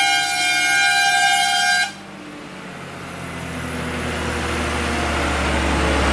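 Truck air horn blowing a steady multi-tone chord, cutting off abruptly about two seconds in. Then the Tata truck's diesel engine and tyres grow steadily louder as it approaches.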